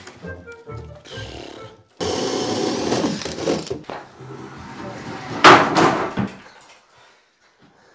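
Work noises from handling tools and floorboards: scraping and rustling, then one loud knock about five and a half seconds in.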